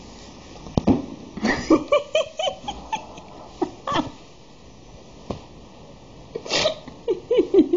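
A cat meowing in short calls that come in two clusters, with a few sharp knocks in between.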